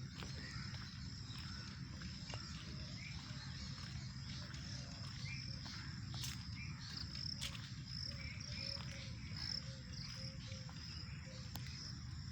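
Outdoor ambience of insects, crickets among them, trilling steadily at a high pitch. Short bird calls are scattered through it, over a low steady rumble.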